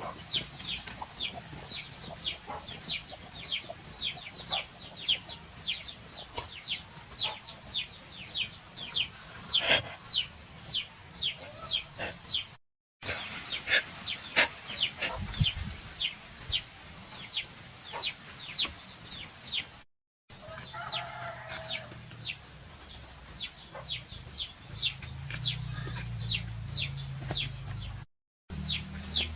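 A long series of short, high-pitched calls, about three a second, each falling in pitch, from a bird or small animal. The sound cuts out completely three times for a moment.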